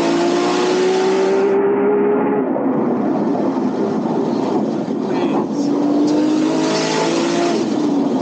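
Nissan Skyline GT-R R34's twin-turbo straight-six, tuned to about 670 hp, pulling hard from inside the stripped-out cabin. The engine note climbs, breaks off about two and a half seconds in, and climbs again from about five and a half seconds in, over loud road and wind noise.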